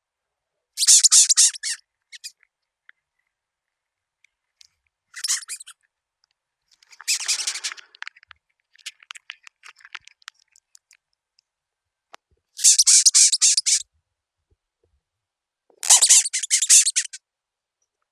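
Great capricorn beetle (Cerambyx cerdo) stridulating: five bursts of rapid, raspy squeaking, each made of many quick pulses and lasting from under half a second to over a second, with a few faint clicks between bursts. It is the longhorn beetle's defensive squeak when disturbed, made by rubbing the rear edge of its prothorax against a ridged file on its midbody.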